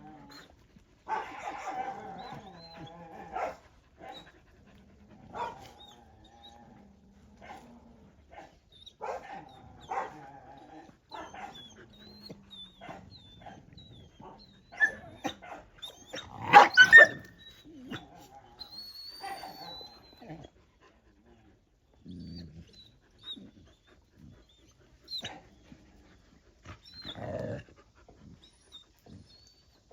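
Dogs whining and yelping on and off, with a louder burst of barking about halfway through.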